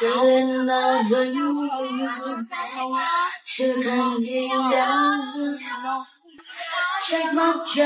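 A voice singing unaccompanied, holding long notes in drawn-out phrases, with short breaks about three and a half and six seconds in.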